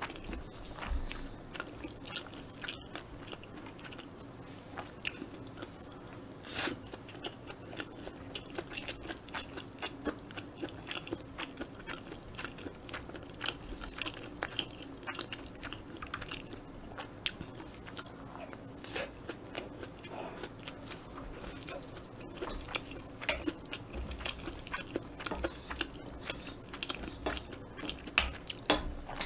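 Close-miked chewing of kimchi fried rice, with many short mouth clicks at irregular intervals.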